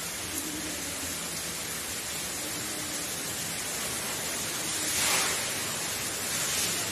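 Steady hiss of rain, swelling briefly about five seconds in.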